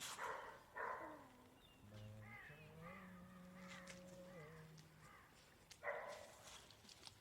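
Crows cawing faintly, three short harsh calls spread across a few seconds, with a faint held pitched sound in between.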